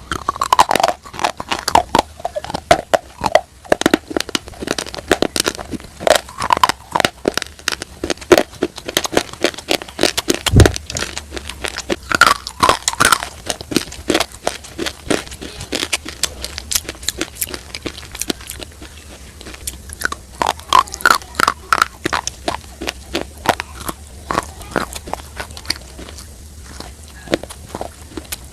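Close-up crunching and chewing: something dry and brittle is bitten and chewed, giving rapid, sharp crunches that ease off briefly about two-thirds of the way through.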